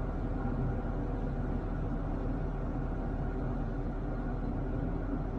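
Vehicle engine running steadily, a low even hum with no change in speed.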